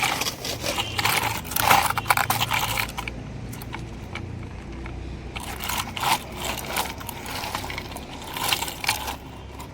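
Small diecast metal toy cars being handled, clinking and scraping against each other and a hard surface in irregular clusters of clicks and rattles.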